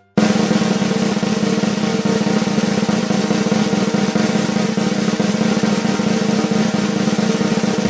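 A continuous snare drum roll in a music track, with a steady held low tone under it, starting abruptly and stopping near the end.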